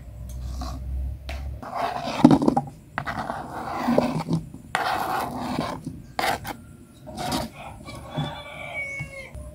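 Kitchen knife cutting bakso meatballs on a plastic cutting board. Several rough scrapes come as the slices are swept off the board into a plastic bowl, then a few sharp knocks of the blade on the board.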